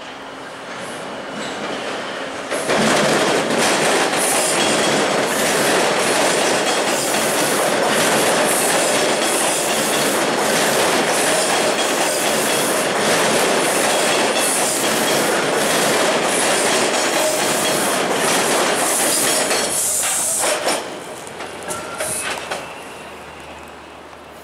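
TTC T1 subway train passing close on surface track, its wheels clicking and clattering over the rail joints. It gets loud suddenly about two and a half seconds in, stays loud, then drops off about twenty seconds in and fades as the train pulls away.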